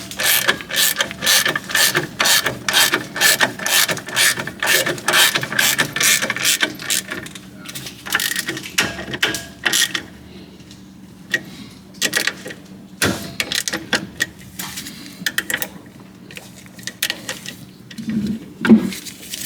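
Hand ratchet wrench clicking in quick strokes, about two or three clicks a second, as bolts are run down snug. The clicking turns sparser and stop-start later, with a louder clank near the end.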